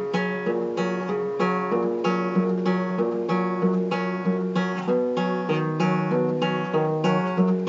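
Acoustic guitar strummed in a steady rhythm, with no singing. The chord changes to a lower bass note about two thirds of the way through.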